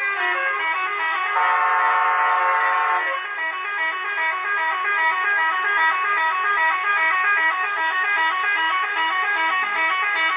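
Vehicle-mounted musical air horn playing a tune in short stepping notes, with one long held chord about a second and a half in.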